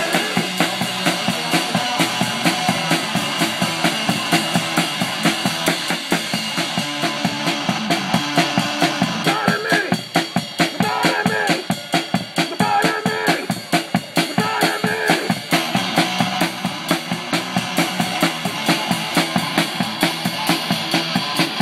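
Small rock band playing live: a drum kit keeps up a fast, hard beat of bass and snare drum hits, with electric guitar through a small amp and a voice through a microphone.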